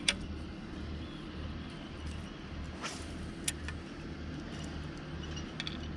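Boat engine idling: a low, steady hum that pulses evenly, with a few sharp clicks over it.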